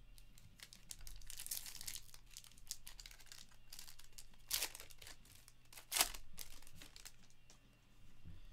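Foil trading-card pack wrapper crinkling and tearing as it is ripped open by hand, with many small crackles and two sharper, louder ones about halfway through.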